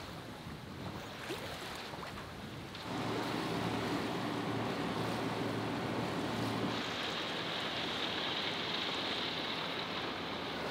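Wind and water rushing past a sailing catamaran. About three seconds in, a steady hum of the boat's engine rises over it, giving way near seven seconds to a higher hiss of wind and water.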